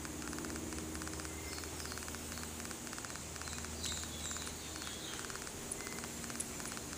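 Outdoor ambience: insects chirping in a steady pulsing rhythm over a low steady hum, with a few short bird chirps about four seconds in.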